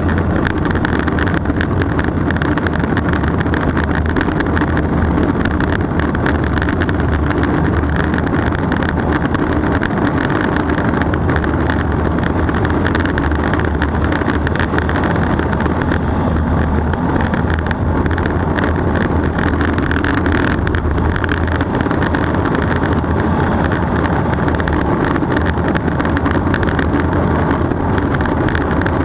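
Street luge's urethane wheels rolling fast on asphalt, a steady roar mixed with wind rushing over the camera's microphone.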